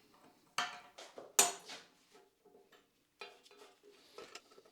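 Metal wrenches clinking against each other while being rummaged through in a toolbox: a few sharp clinks with a short metallic ring, the loudest two in the first second and a half and lighter ones later.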